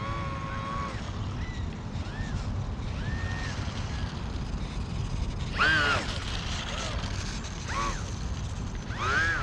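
Steady low rumble of wind on the microphone, with a string of short, high cries that rise and fall, the loudest about six seconds in and another at the end.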